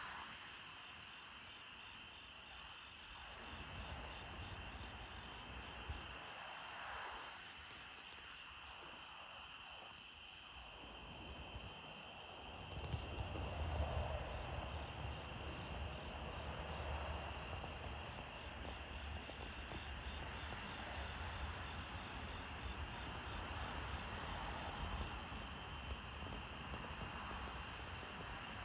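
Night chorus of crickets and other insects: a steady, many-voiced pulsing trill. A low rumble joins about halfway through.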